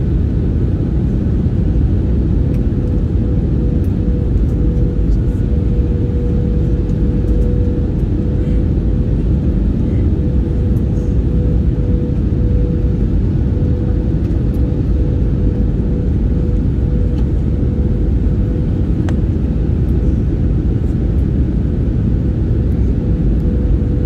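Steady cabin noise inside an Airbus A320 in flight: a low, even drone of engines and airflow with a steady mid-pitched hum running through it.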